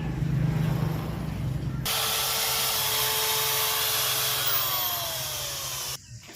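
Power tool running on wood: a low hum, joined about two seconds in by a loud steady hiss that drops out near the end.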